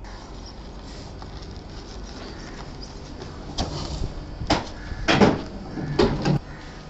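A metal wheelbarrow being tipped into a steel mixer hopper, with several clattering knocks and scrapes from about three and a half seconds in as its tray strikes the hopper edge and the sand-cement mix slides in. A low steady rumble runs underneath.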